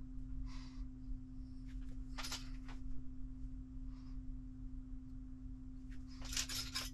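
Small kit parts and tools being handled on a work mat: a few brief, faint clicks and rustles as a grub screw and hex driver are picked up. Under them runs a steady low hum.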